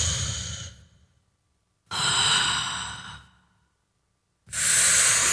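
Mouth-made breathy sigh effects, run through a pitch shifter, played back one after another: three sighing exhalations, the first already under way, each fading away.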